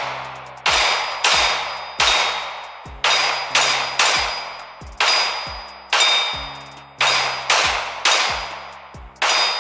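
About a dozen shots from a Glock pistol, fired one after another in an uneven rhythm of roughly one every half-second to second. Each is a sharp crack with a long echoing tail. Several are followed by a thin metallic ring as steel targets are hit.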